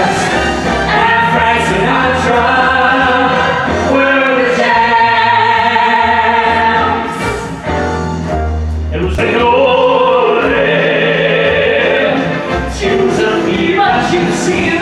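Singers performing live on stage with a backing band, several voices singing together over steady bass notes, with two brief dips between phrases.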